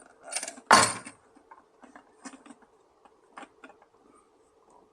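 Plastic parts of a weather station sensor suite being handled: a loud sharp clack about a second in, then light clicks and rubbing as the housing is turned over and fiddled with.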